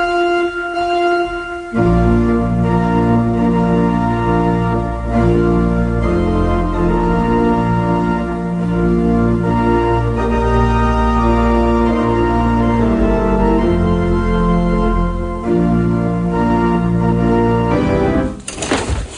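Organ playing slow, held chords, with a deep bass part coming in about two seconds in. The music breaks off near the end, followed by a short burst of noise.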